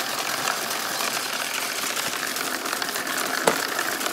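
Lego electric motors driving a toy car wash's spinning brushes and slow geared conveyor: a steady mechanical whir with many faint ticks, and one sharp click about three and a half seconds in.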